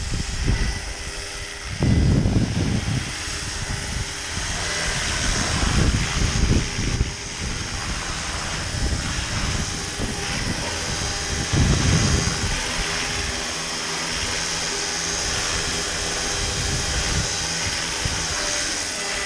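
Roban 700-size Black Hawk RC scale helicopter in flight, its motor and rotors making a steady whine. Gusts of wind buffet the microphone with low rumbles about two seconds in, around six seconds and near twelve seconds.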